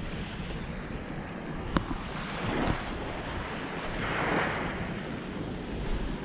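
Water waves splashing and wind buffeting the microphone, with a sharp click about two seconds in and a swell of splashing hiss around four seconds.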